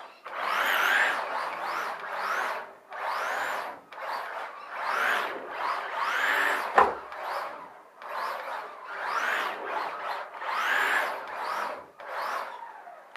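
Electric RC drift car's motor whining up and falling back in repeated throttle bursts, about one every second and a half, with the tyres scrubbing across the floor as it slides. A sharp knock about seven seconds in.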